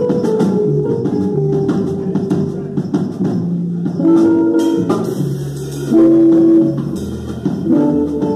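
Small jazz combo playing live: upright bass and drum kit, with louder held notes from the other instruments about four and six seconds in.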